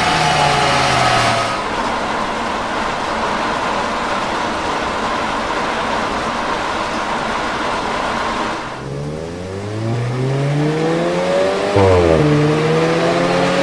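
VW Golf GTI Mk8's turbocharged four-cylinder on a chassis dyno. The engine note falls away at first, then gives way to a steady rushing noise with no engine note for several seconds. From about nine seconds in the engine revs climb again through the gears, dropping at upshifts near the end.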